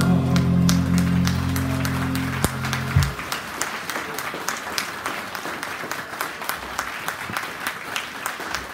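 A live band's final held chord ringing out and stopping about three seconds in, while an audience applauds; the clapping carries on after the music ends.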